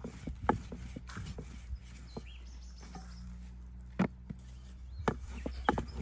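Scattered sharp knocks and taps at irregular intervals, fewer in the middle and bunching up again near the end, over a faint low steady hum.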